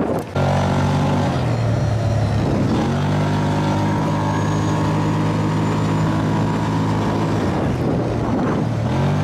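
Dune buggy engine running hard over sand dunes, a steady drone whose pitch drops and climbs back up once, then drops again near the end.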